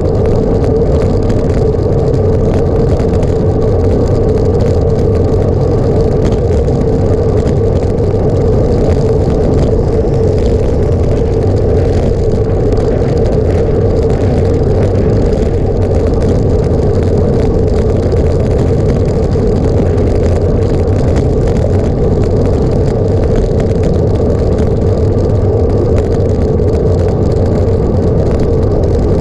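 A vehicle running steadily at constant speed: an even drone with one held pitch and a low rumble beneath, unchanging throughout.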